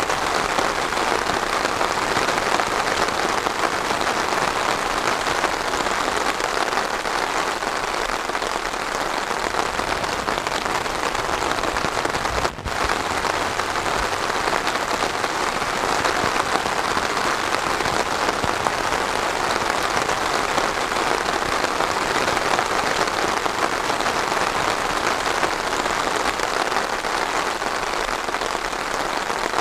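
Steady, even rainfall, a dense continuous patter of drops, with a momentary break in the sound about twelve seconds in.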